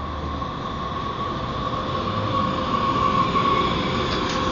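MUNI light-rail train drawing near, a steady high whine over a rumbling noise that grows louder.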